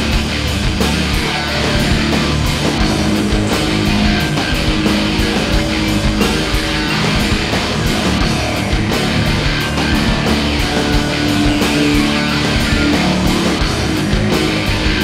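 Loud rock music with electric guitar and a steady drum beat.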